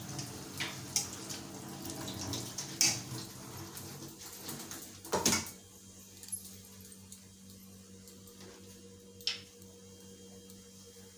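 Chopped vegetables being rinsed in a steel bowl under a running kitchen tap: water splashing, with several clinks and knocks of the bowl, stopping about five and a half seconds in. After that only a low steady hum, with one sharp click near the end.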